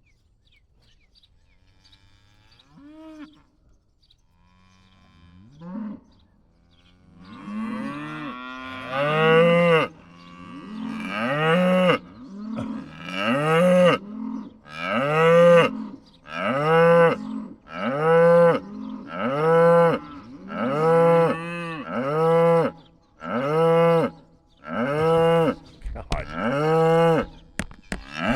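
Cattle mooing. After a few faint calls, loud calls follow one after another about every second and a half from about eight seconds in, each rising and falling in pitch.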